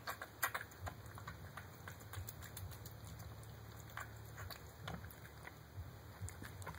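A cat eating wet food from a bowl: irregular small clicks and smacks of chewing and licking, a cluster of sharper clicks about half a second in, over a low steady hum.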